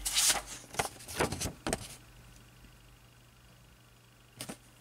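Hands handling small metal clock parts and a sheet of paper on a tabletop: a quick string of clicks and rustles in the first two seconds, then two light clicks near the end.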